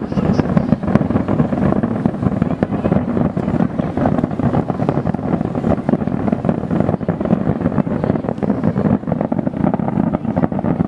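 Dense barrage of fireworks: many bursts and crackles running together into a continuous rumble.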